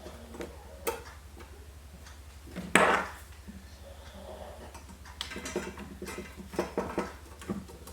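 Small metallic clicks and knocks from screws and a hard drive being handled and fitted into a PC case's drive bay, with one louder knock about three seconds in and a run of quick clicks near the end, over a steady low electrical hum.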